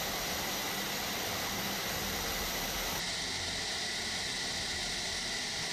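F-15K fighter jet's engines running in a hardened aircraft shelter: a loud, steady hiss with a faint high whine.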